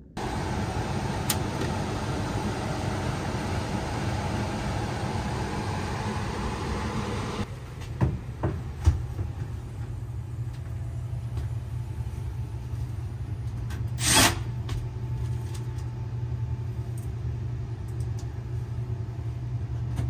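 Heat pump air handler's blower running in cooling mode: a steady airy rush over a low hum. About seven and a half seconds in the airy part drops away abruptly, leaving the low hum, and a few knocks and a short scrape follow as the cabinet is handled.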